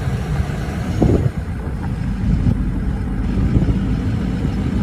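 A vehicle driving slowly over a rough track: a steady low rumble of engine and tyres, heard from inside with the window open. There is a brief thump about a second in.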